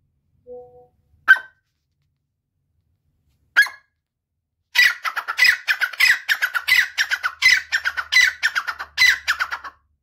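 Grey francolin calling: two single sharp shrill notes a couple of seconds apart, then about five seconds of loud, rapid, repeated shrill notes.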